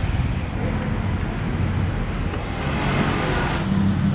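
Street traffic running past: a steady low engine rumble, with one vehicle swelling louder and passing from about two and a half to nearly four seconds in.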